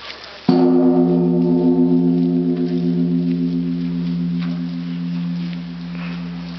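Japanese Buddhist temple bell (bonshō) struck once about half a second in, then ringing on with a long, slowly fading hum that wavers in a steady pulse.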